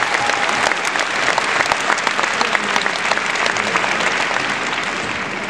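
A large arena audience applauding: dense, steady hand-clapping that begins to fade near the end.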